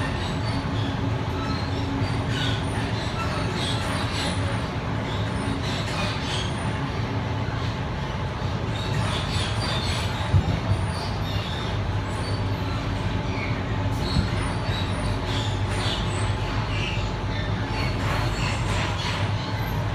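Sydney suburban electric train running, heard from inside the carriage: a steady rumble and hum of wheels on rail, with scattered faint squeaks and two sharp knocks, about ten and fourteen seconds in.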